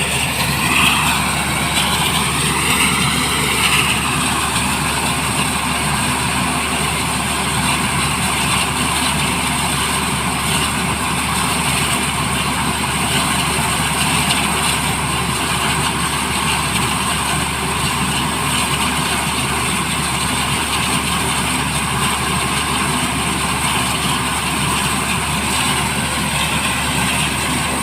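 Black Hawk helicopter running, a loud, steady mix of turbine and rotor noise that holds at one level throughout.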